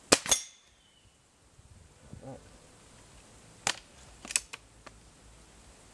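Crosman F4 Nitro Piston .177 break-barrel air rifle firing, with the pellet striking a small metal target a moment later and ringing briefly. About three and a half seconds in come several sharp clicks as the barrel is broken open and cocked for the next shot.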